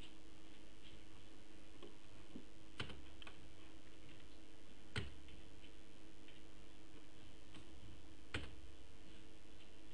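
Three sharp clicks from working a computer, a couple of seconds apart, with fainter ticks between them, over a steady low hum and hiss.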